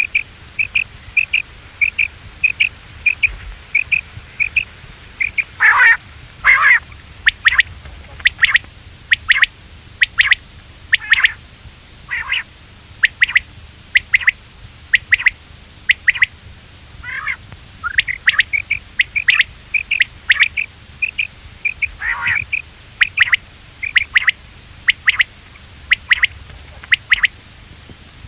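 Quail calling: a steady run of short, high call notes about two or three a second, broken now and then by louder calls that slide down in pitch. This is a quail-call recording of the kind played to lure quail in.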